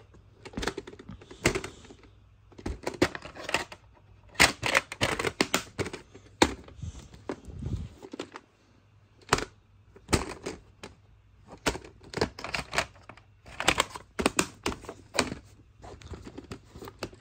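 Plastic VHS clamshell cases clacking and clicking against each other as they are picked up, shuffled and stacked, in irregular clusters of sharp knocks.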